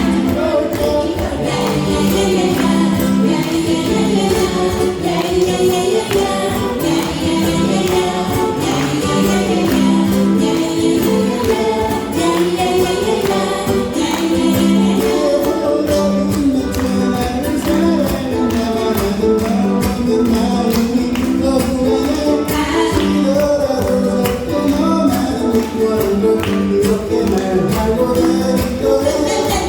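Ukulele ensemble strumming a steady rhythm while the group sings together.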